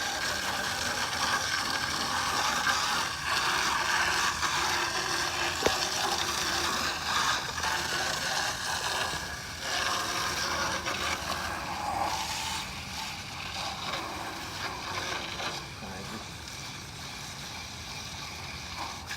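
Garden hose water spraying through an AC condenser coil's fins, a steady hiss that drops lower about twelve seconds in.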